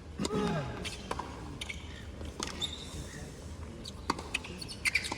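Hushed tennis stadium between points: a single voice calls out briefly with a falling pitch near the start, then scattered sharp knocks and clicks over a low background murmur.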